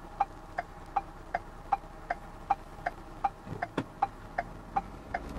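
A car's turn-signal indicator ticking steadily inside the cabin, about two and a half clicks a second, over a low road hum.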